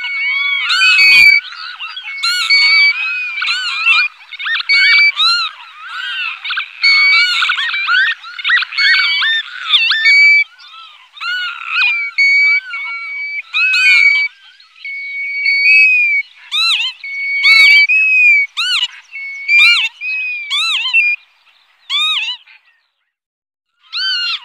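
A large mixed flock of golden plovers and northern lapwings calling in flight: many overlapping plaintive whistles, some held level and many rising and falling. The calls are densest in the first half, grow sparser, and stop briefly shortly before the end.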